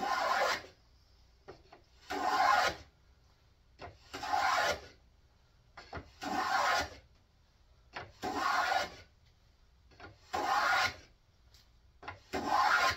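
Ohio Tool No. 28 wooden plough plane cutting a groove along a board: the iron shaves the wood in seven short strokes, about one every two seconds, with quiet between them.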